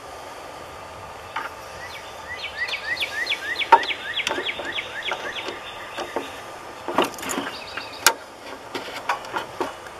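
Sharp plastic clicks and knocks as a headlight bulb socket is pushed down and twisted into its plastic headlight housing. For a few seconds in the middle a run of quick rising chirps, about four a second, sounds alongside.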